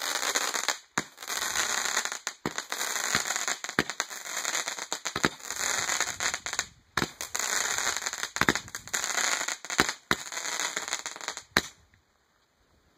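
Several Roman candles fired together: a steady hissing, crackling burn with a dozen or so sharp pops as the balls shoot out, until the burning stops suddenly near the end.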